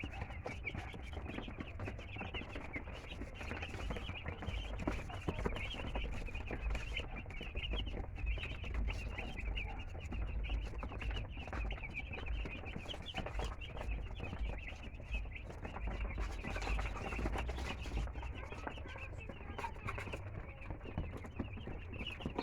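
A flock of chickens clucking and calling continuously, many short overlapping calls, over a low steady rumble.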